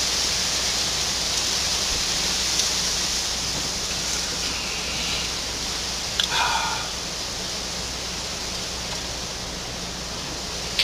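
Steady hiss of background noise, with two brief high-pitched chirp-like calls, one about four and a half seconds in and a louder one about six seconds in.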